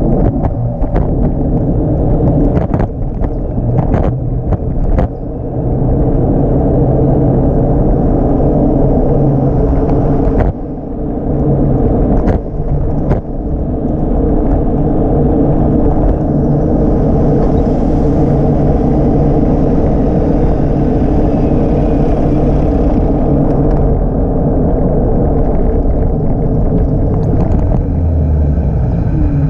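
Segway Ninebot Max G30LP electric scooter riding along: a steady rumble with a low hum, broken by sharp knocks and rattles over bumps, a cluster in the first few seconds and a few more around eleven to thirteen seconds in.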